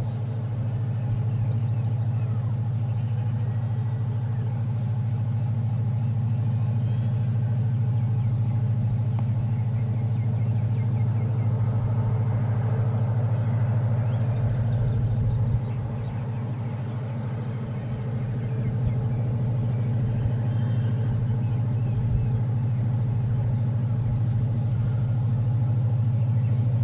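Diesel locomotive engine running with a steady low drone. It drops in level suddenly about halfway through and builds back up a couple of seconds later.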